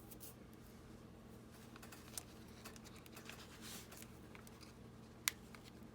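Faint rustling of paper and small ticks as a metal paper clip is pushed onto the edge of a journal page, with one sharp click about five seconds in.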